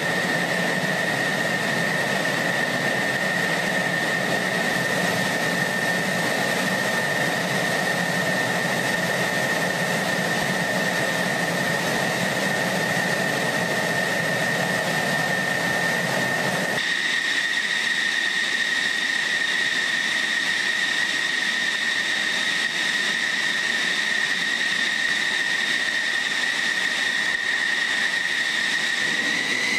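An F-16 Fighting Falcon's jet engine running at idle with a steady high whine over a rushing roar. Near the end the whine rises in pitch as the engine spools up.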